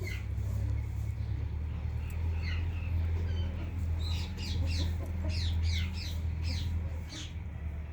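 Parrot calls: a run of short, quick, downward-sweeping chirps, a few scattered at first and then coming thick and fast from about four seconds in, over a steady low hum.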